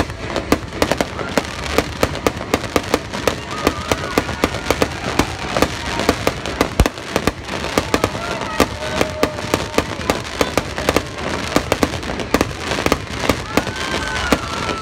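Aerial fireworks going off in a dense, irregular stream of sharp pops and crackles, many a second, as glittering crackle-star shells burst.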